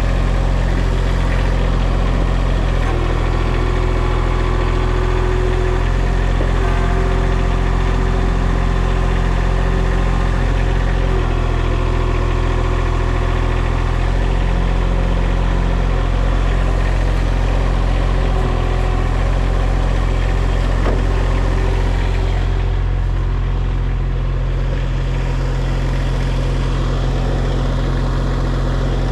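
Diesel engine of a mini skid steer idling steadily, with a slight change in engine note now and then.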